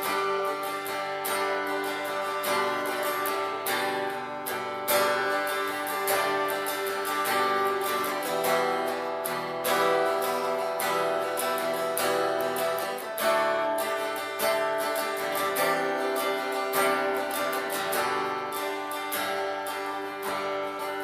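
Instrumental break in a worship song, no voices: acoustic guitar strumming steadily over held chords.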